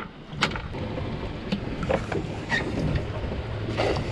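Low steady rumble of a slow-running outboard and wind, with a few short sharp knocks and a splash as a cast net is hauled and thrown from the bow of a fiberglass center console boat.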